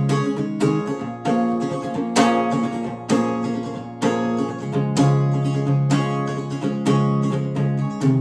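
Acoustic guitar playing chords, with a sharp strum about once a second and the chords ringing on between strums.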